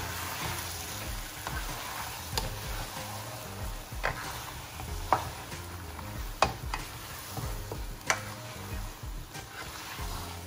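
Raw chicken pieces sizzling in spice paste in a hot wok while a plastic spatula stirs them, with several sharp knocks and scrapes of the spatula against the pan.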